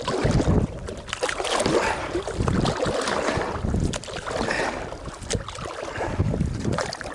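A small boat being rowed, oars working and water sloshing against the hull, with wind buffeting the microphone.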